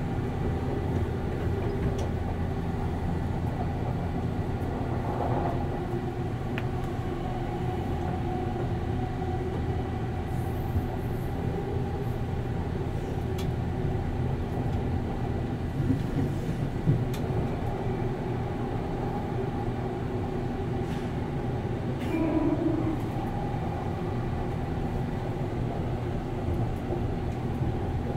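Inside a JNR 189-series motor car (MoHa 189) running at steady speed: the even hum of its MT54 DC traction motors and gearing over rolling rail noise, with a few faint clicks from the track.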